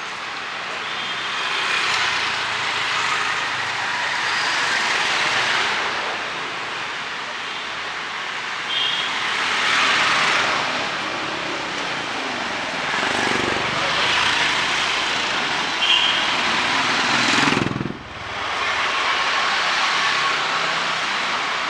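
Street traffic on wet roads: vehicles passing one after another, the noise swelling and fading every few seconds, with a brief sudden dip near the end.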